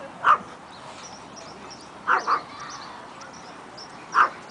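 Dog barking: a single bark, a quick double bark about two seconds in, and another single bark near the end.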